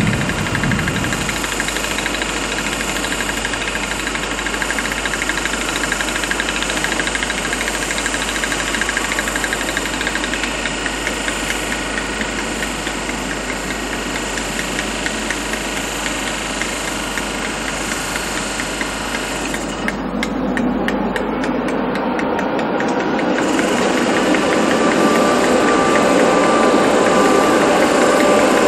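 Standing British AC electric locomotive running its equipment: a steady mechanical hum and whir with a fine ticking rattle, growing louder over the last few seconds.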